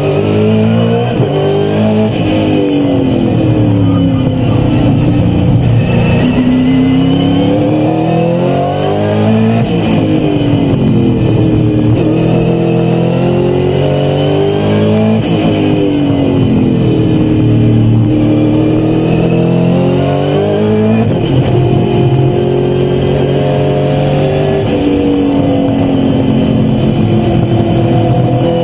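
V8 Supercar's V8 engine being driven hard at racing speed. Its note climbs and falls again and again as it accelerates, shifts and slows.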